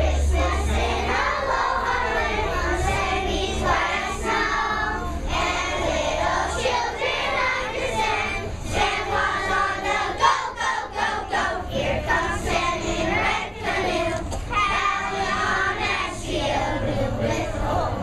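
A group of young children singing a Christmas song together in unison.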